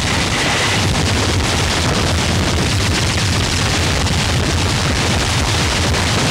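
A dense, unbroken wall of distorted noise with a heavy low rumble underneath, holding a steady loud level.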